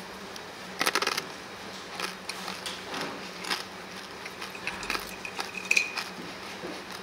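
Tableware clattering at a table: a quick run of clicks and clinks about a second in, scattered light taps, and a short ringing clink near the end.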